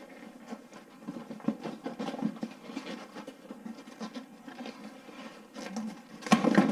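Packaging rustling and scraping as a drone is tugged at in its tight-fitting box, a run of small irregular scratches and clicks, with a louder scrape near the end.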